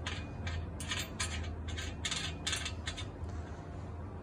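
Small metal nuts being turned by hand onto bolts on a metal rack bracket: a run of short, irregular metallic scrapes and clicks.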